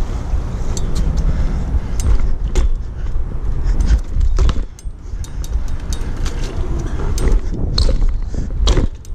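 BMX bike rolling fast over concrete, with a steady rumble and wind buffeting the rider-worn mic. The chain and parts rattle, and there are several sharp clattering knocks; the loudest, near the end, fits the bike coming down hard as it cases a small set.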